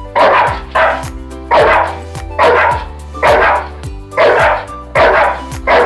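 Small wiener dog barking at a larger dog, about eight sharp barks a little more than one a second apart, over background music.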